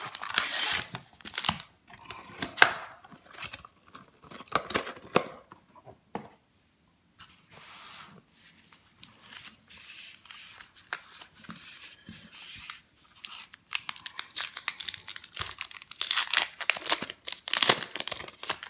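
Trading-card packs and their cardboard box handled by hand, with wrapper crinkling and tearing in irregular bursts. It is loudest in the first few seconds and again near the end, as a pack wrapper is torn open.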